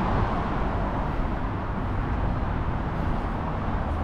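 Steady noise of road traffic, a continuous wash of sound with no distinct passing vehicle standing out.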